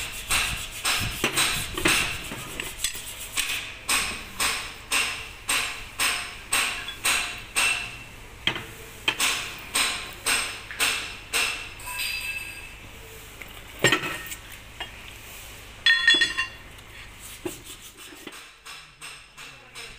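Rhythmic hammer blows on metal, about two a second, each with a short ringing tone. They fade after about twelve seconds, then come two louder metal clanks a couple of seconds apart and lighter taps near the end.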